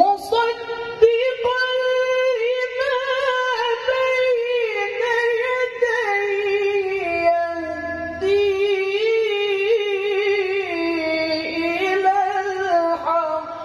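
A man reciting the Quran in the melodic tilawah style, amplified through a microphone. He sings one long, high, unbroken phrase full of ornamental turns that slowly sinks in pitch, and it breaks off briefly near the end.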